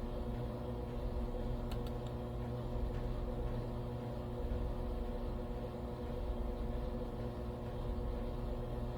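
Washing machine running, a steady low hum with a few faint ticks about two and three seconds in.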